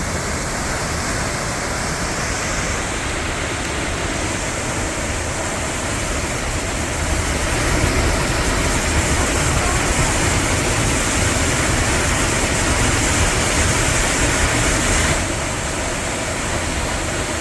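Close, powerful roar of Tunnel Falls on Eagle Creek, a steady rush of falling water that swells slightly midway and cuts off suddenly at the end.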